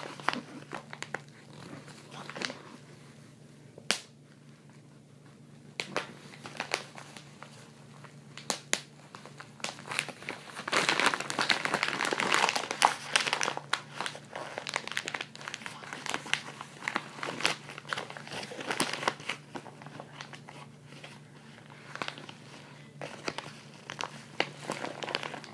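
Plastic bubble wrap of a padded mailer crinkling and crackling as it is handled and squeezed. Scattered sharp clicks run through it, with a denser stretch of crackling around the middle.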